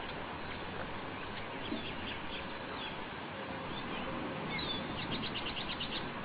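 Birds chirping over a steady background hiss, with short scattered calls and, near the end, a quick run of about eight repeated notes in roughly a second.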